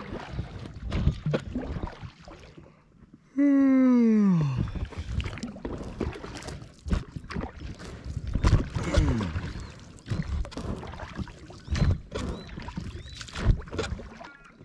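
Oars dipping, splashing and knocking as a small two-person inflatable boat is rowed, in irregular strokes and thumps. A few seconds in, a loud drawn-out cry falls steadily in pitch, and a fainter one like it follows about five seconds later.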